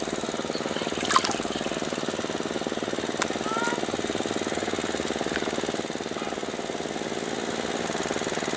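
A small engine running steadily with a rapid even beat, with a couple of sharp clicks about one and three seconds in.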